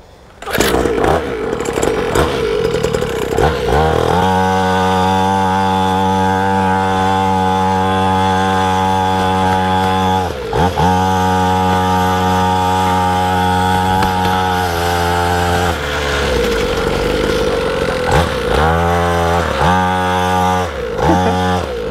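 Warmed-up SYX Moto 50cc two-stroke pit bike engine being ridden, running a steady buzzing note for several seconds. The pitch dips briefly and recovers about ten seconds in and drops off around fifteen seconds. Near the end it revs up and down in several short blips.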